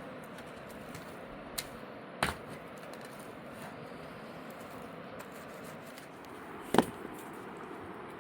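Three sharp knocks over a steady rushing background: a light one about a second and a half in, a louder one just after, and the loudest near the end.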